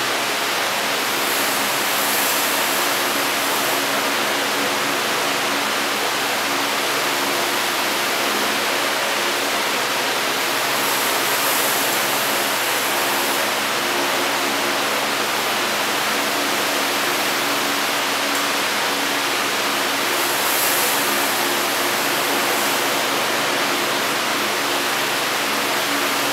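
Steady rushing noise with no breaks, with a faint low hum of steady tones beneath it.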